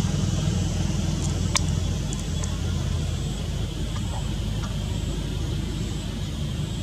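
Steady low rumble of a motor vehicle engine running, with a sharp tick about a second and a half in.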